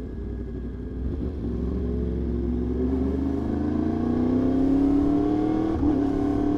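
Yamaha R1 inline-four sport-bike engine accelerating hard in gear, its pitch rising steadily for about five seconds, with a brief dip near the end, over a steady low rumble.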